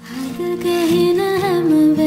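Background music: a soft melody with long held notes.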